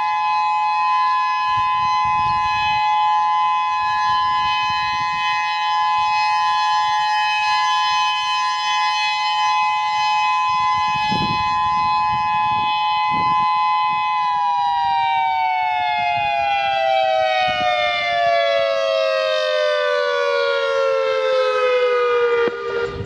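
Whelen 3016 electronic outdoor warning siren sounding a loud, steady two-note alert tone, which about two-thirds of the way through winds down, both notes falling smoothly in pitch until it cuts off near the end: the close of the three-minute alert signal in a monthly siren test.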